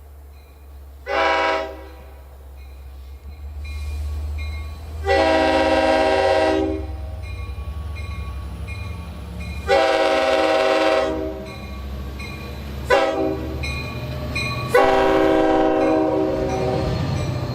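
Long Island Rail Road DE/DM30AC diesel locomotive's air horn sounding a short toot, then the grade-crossing pattern: long, long, short, long. A low rumble from the locomotive runs underneath and grows near the end as the train comes closer.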